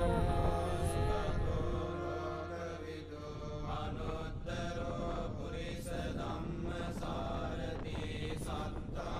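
Slow Buddhist chanting with long held notes over a low drone. The drone stops about three seconds in and the chanting goes on more faintly behind a rough, gusty noise.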